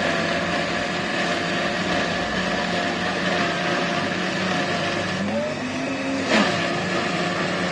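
Electric blender motor running at full speed, blending a smoothie with a steady whine; its pitch rises for a moment about five seconds in, and a sharp knock sounds about a second later.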